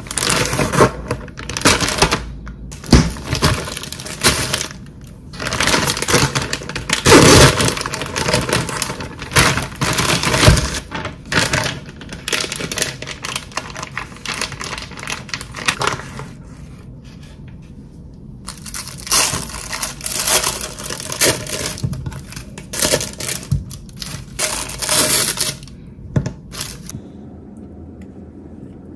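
Crinkly plastic food packaging being opened and handled, crackling and rustling in loud irregular bursts, with a quieter spell about midway and dying down near the end.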